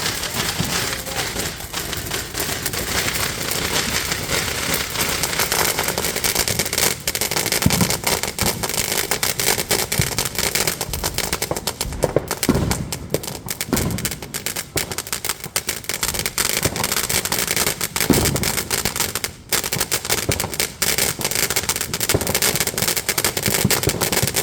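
Fireworks crackling and popping in a rapid, unbroken stream, with a few louder bangs now and then.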